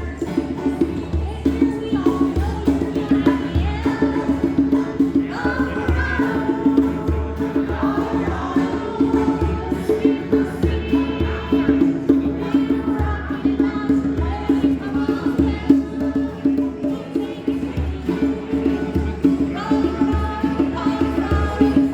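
Folk-style song with a steady beat, a sustained chord underneath, and voices singing over it at times.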